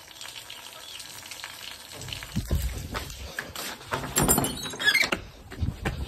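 Irregular knocks and scuffs of a hand on a wooden board, then footsteps on a concrete floor, starting about two seconds in. A short high-pitched chirp comes near five seconds.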